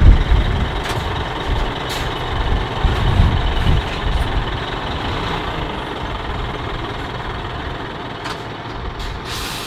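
Scania R-series truck's diesel engine running at low speed as the tractor-trailer rolls slowly past, a steady low rumble with a short burst of hiss near the end.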